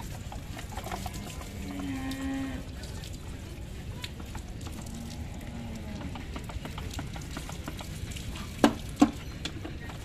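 Cow mooing: one moo about two seconds in that steps up in pitch partway, and a fainter second moo near the middle. Near the end come two sharp knocks close together, the loudest sounds.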